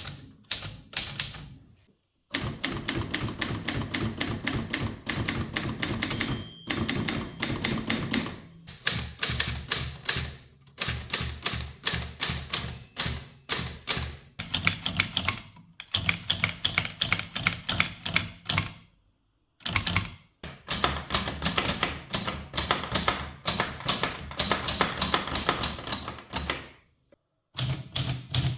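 Mechanical typewriters being typed on: rapid runs of type-bar strikes, several a second. The runs come in several stretches broken by short pauses, each stretch sounding a little different in body and pitch, as from one machine to the next.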